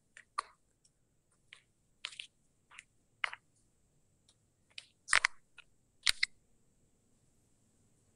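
Irregular small clicks and scrapes from a whiteboard marker being handled, with two louder sharp knocks about five and six seconds in.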